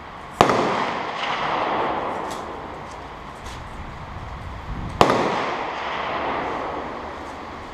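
Two gunshots about four and a half seconds apart, each a sharp crack followed by a long echo that dies away over a couple of seconds. The shooter's own hands are busy at the bench, so these are shots from others on the firing line.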